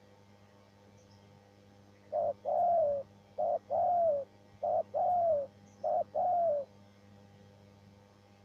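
A spotted dove cooing: four phrases in a row, each a short note followed by a longer note that falls slightly in pitch, starting about two seconds in.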